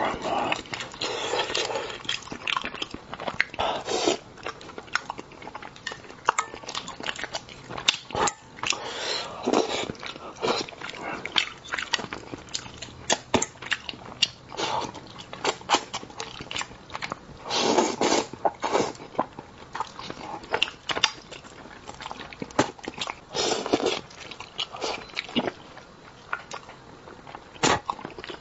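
Close-miked eating of spicy braised crucian carp: chewing and biting with many small sharp clicks and wet mouth sounds.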